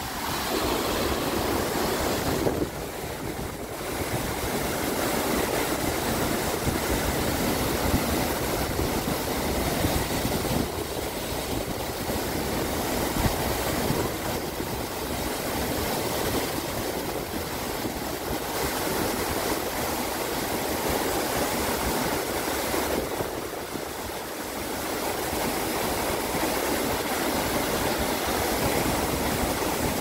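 Mountain waterfall pouring into the pool at its base: a steady, noisy rush of falling water that eases briefly twice.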